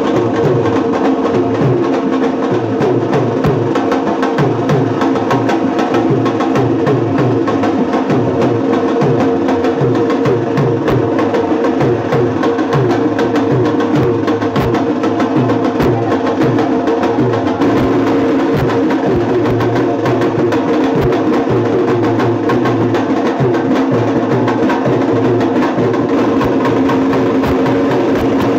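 Loud music driven by fast, dense drumming: a continuous run of sharp strikes over a steady repeating low beat.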